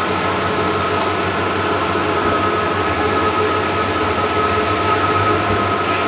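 Bluewin outdoor large-format banner printer running, a steady mechanical noise with a thin high whine and a low hum throughout.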